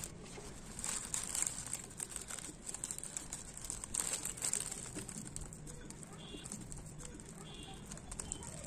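Clear plastic sheet crinkling and rustling as it is gathered around a pot and tied down with a ribbon; irregular crackles, strongest about a second in and again around four seconds.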